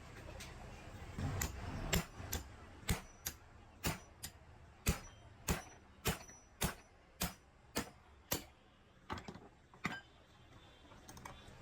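Hammer striking metal in a steady run of sharp knocks, about two a second, during work on a motorcycle rear shock absorber. The knocks start about two seconds in and stop near the end.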